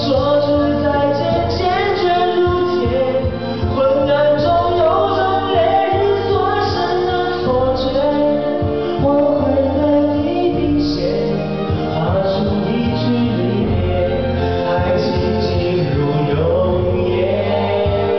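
A man singing a Mandarin pop ballad into a handheld microphone over a karaoke backing track, his voice amplified through the room's speakers.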